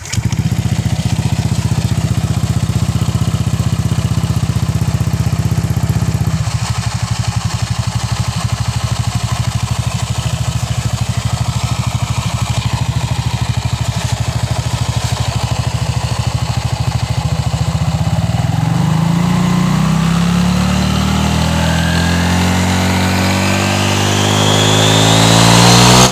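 Honda Vario 150 scooter engine starting and idling with the CVT cover off, the drive belt and a newly fitted racing variator pulley spinning in the open. Over the last eight seconds or so the revs climb steadily as the belt rides fully up the pulley, a test run of the new pulley.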